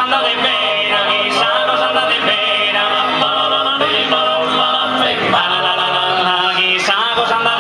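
Live performance by a Sardinian tenore group: men's voices singing in close harmony in held chords that shift from one to the next.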